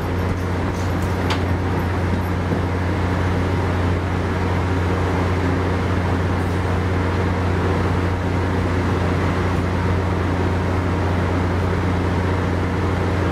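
A standing MARC commuter train with its MP36PH-3S diesel locomotive idling: a steady low engine hum over a constant rumble. A couple of faint clicks come about a second in.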